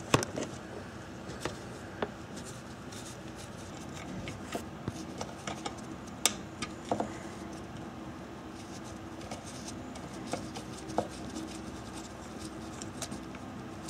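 Gloved fingers threading a bolt by hand and handling a plastic splash shield under a car's front bumper: scattered small clicks, taps and rubbing, a few sharper ticks now and then.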